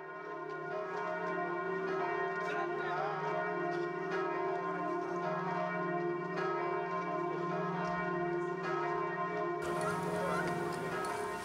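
Church bells ringing, their tones sustained and overlapping.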